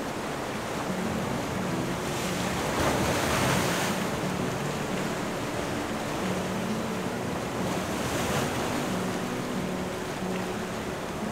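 Sea surf washing against the coast, swelling loudest twice: about three seconds in and again around eight seconds.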